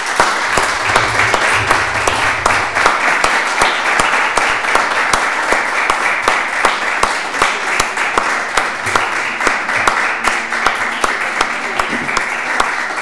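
Small audience applauding, many hands clapping steadily and densely.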